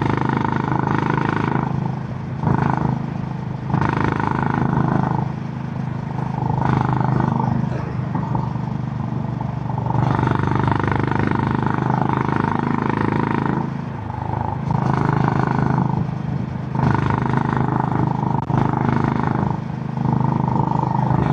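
Honda GB350's air-cooled 348 cc single-cylinder engine through its stock exhaust, running on the road, the note swelling and easing again and again as the throttle is opened and rolled off.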